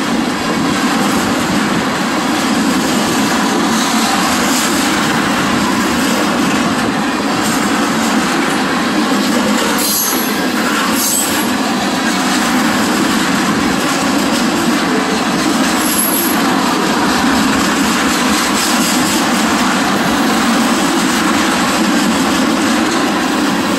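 Freight train's tank cars rolling past close by: a steady rumble of steel wheels on rail, with a couple of brief high-pitched wheel squeals a little under halfway through and again past the middle.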